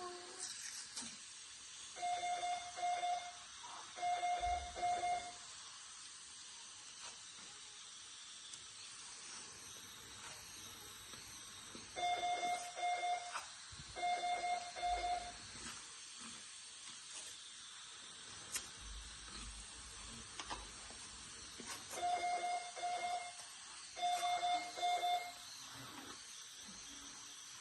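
Medical equipment alarm beeping: a pair of short runs of quick, single-pitched beeps that repeats about every ten seconds, three times, over a steady faint hiss.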